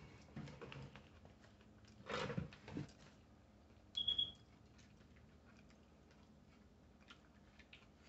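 A short high-pitched electronic beep, a quick run of chirps at one pitch, about four seconds in. Before it, a brief low voice sound about two seconds in.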